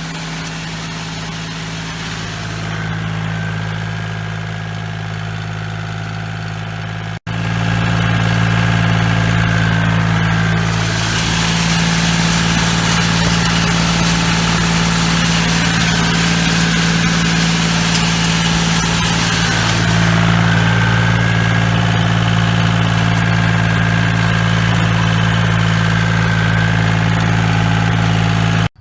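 Tractor engine running steadily while pulling a box blade over gravel. It cuts out for an instant about seven seconds in and comes back louder.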